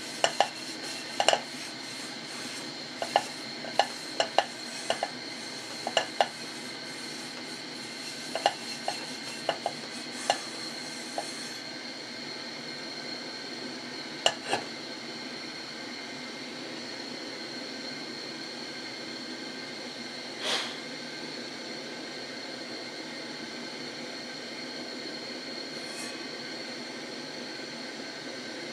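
Aluminum pan being handled: a dozen or so light, irregular knocks and clinks over the first half. After that, mostly a steady hiss with a thin high whine, broken by one soft bump about two-thirds of the way through.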